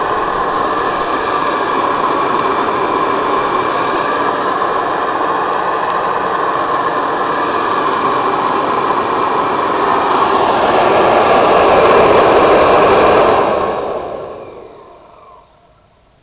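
Hoover Model 541 vacuum cleaner motor running steadily, getting louder about two-thirds of the way through, then switched off and winding down to quiet near the end.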